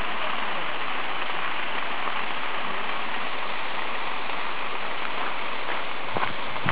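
Steady noise of a stream's running water. A few footsteps on gravel come through near the end.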